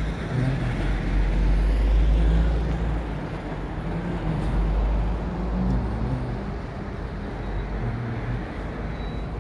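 Road traffic noise: a low vehicle rumble that swells about half a second in, is loudest around two seconds in, and then eases to a steadier traffic hum.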